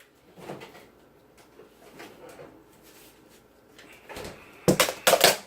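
Kitchen handling sounds: faint shuffling at first, then a couple of short, loud, sharp clattering scrapes near the end, like a drawer or cupboard being worked.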